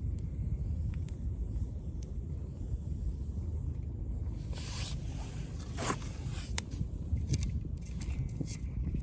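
Wood fire burning in a fire pit: a steady low rumble with a short hiss around halfway and scattered sharp crackles and pops in the second half.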